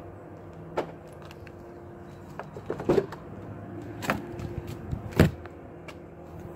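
Car door being unlatched and swung open: a few clicks and clunks, the loudest about five seconds in, over a steady low hum.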